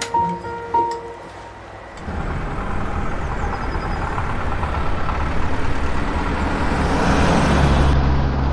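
A few musical notes, then about two seconds in a motor vehicle's engine and road rumble cuts in and grows steadily louder.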